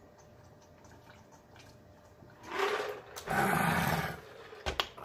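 A man drinking from a plastic pitcher, faint at first, then a loud, rough, breathy sound from the throat in two pushes about two and a half seconds in, as after a long swallow. A short low knock follows near the end.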